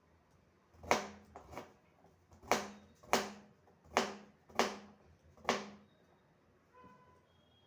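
Kitchen knife chopping on a cutting board: about seven separate, unevenly spaced chops, each with a short ringing thud from the board.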